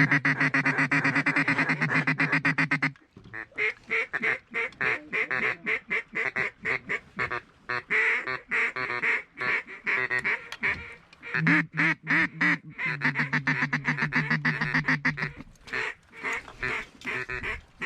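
Duck calls blown by hunters in the blind: long runs of rapid, closely spaced quacking and chatter, with two longer stretches of buzzy sustained calling near the start and in the middle.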